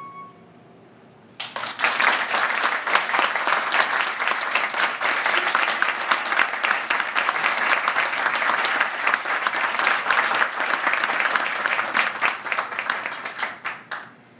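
Audience applause: the last held flute note dies away, and after a second's pause dense clapping breaks out, runs on, then thins out and stops near the end.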